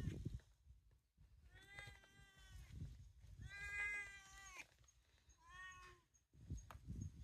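A cat meowing three times: two drawn-out meows, then a shorter one about six seconds in.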